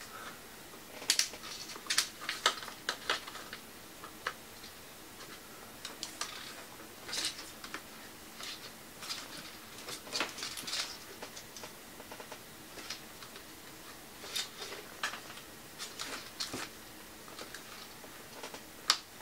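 Quiet, scattered small clicks, taps and light scrapes of fingers handling parts inside an opened ThinkPad X230T laptop, around its Wi-Fi card antenna cables and mSATA slot.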